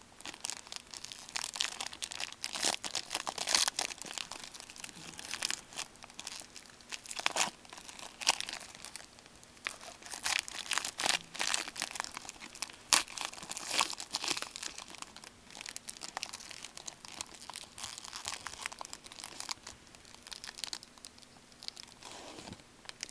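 Foil trading card pack wrapper being torn open and crinkled, a long irregular run of crackles and rustles.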